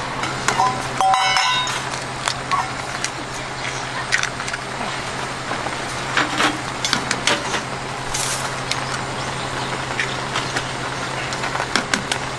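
A large pan of budae-jjigae (army stew) simmering on a camping stove: scattered pops and clicks over a steady hiss. A few clinks of metal tongs against the pan come about a second in.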